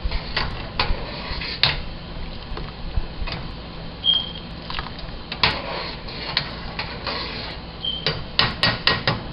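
A utensil stirring gelatin into a pot of boiling water, clinking and knocking against the pot in irregular strokes, with a quicker run of clinks near the end.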